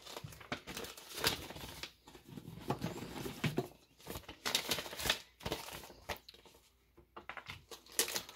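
Crinkling and rustling of a small clear plastic bag and a paper coin envelope being handled, in a string of short bursts with brief pauses.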